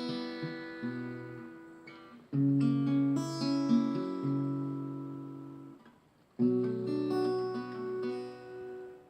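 Acoustic guitar playing a slow instrumental introduction: a new chord phrase about every four seconds, each one plucked and left to ring down.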